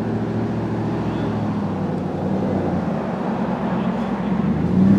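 A steady engine drone, a low hum that swells slightly near the end.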